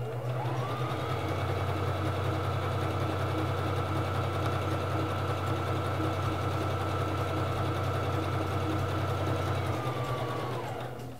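Singer Fashion Mate 3333 sewing machine stitching a wide zigzag. The motor whine climbs over about the first second, runs steadily, and winds down near the end as the machine stops.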